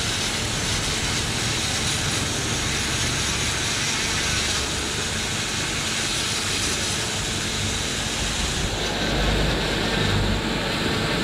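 Jeweller's flex-shaft rotary tool running steadily with a whirring hiss as its handpiece polishes a metal ring; the high hiss thins out about nine seconds in.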